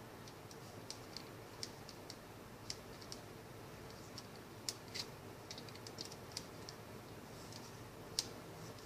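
Small screwdriver working the screws of a replacement transmitter joystick, giving light, irregular clicks and ticks as the screws are loosened and the tool and parts are handled. A few clicks are sharper, the loudest near the end.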